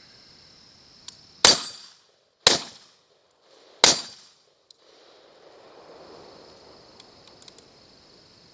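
Three gunshots, the second about a second after the first and the third about a second and a half later, each followed by a short echo.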